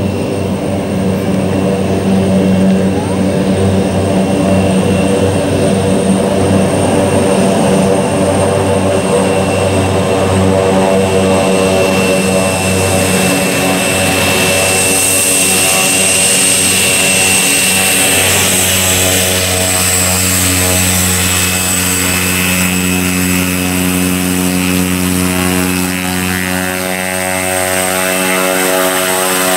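Pilatus PC-6 Turbo Porter's turboprop engine running as the plane taxis on a grass airstrip: a steady high turbine whine over the propeller's hum. The sound grows fuller about halfway through as the plane comes closer.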